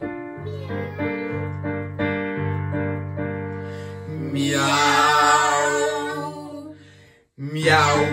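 Digital piano playing a piano-sound introduction. About halfway through, a voice holds one long note with a wavering pitch over it. The music cuts off for a moment near the end, then starts again.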